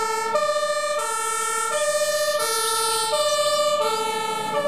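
German two-tone fire engine siren (Martinshorn) on a MAN turntable-ladder fire truck answering an emergency call. It alternates between a lower and a higher note about every 0.7 seconds.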